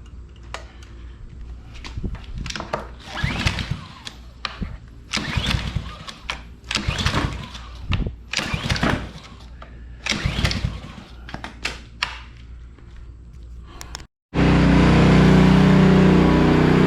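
Honda pressure washer's small gas engine being pull-started over and over, each yank of the recoil cord turning it over without it catching. After an abrupt break near the end, the engine is running steadily and loud.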